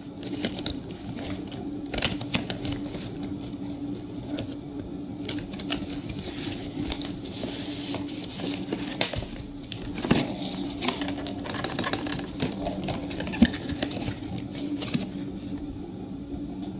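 A cardboard gaming-mouse box being torn and pried open by hand: tabs and flaps pulled apart with scattered clicks and paper scraping. There is a denser rustle of plastic wrap in the middle.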